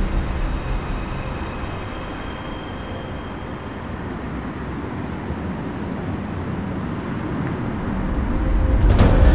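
City street traffic: a steady rumble of cars driving past, growing louder near the end.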